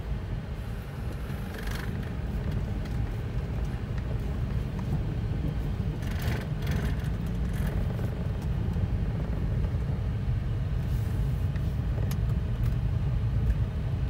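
Daihatsu Ayla driving slowly, heard from inside the cabin: a steady low engine and road rumble. A few short hissy sounds rise over it about two, six and eleven seconds in.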